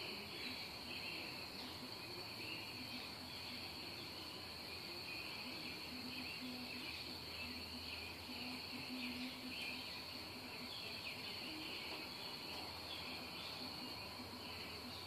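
Steady chorus of chirping insects: a continuous high trill with a busier chirring layer beneath it.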